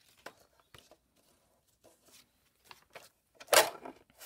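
A sheet of stiff, textured handmade paper being slid and squared up on a Ranger deckle-edge paper trimmer, with soft rustles and light taps. A louder, short scrape-and-clack comes about three and a half seconds in.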